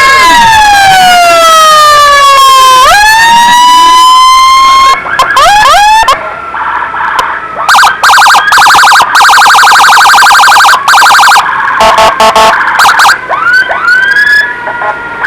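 Loud ambulance electronic siren cycling through tones: a slow falling wail for about three seconds and a quick rise, then rapid short chirps and a fast pulsing warble, then rising sweeps again near the end.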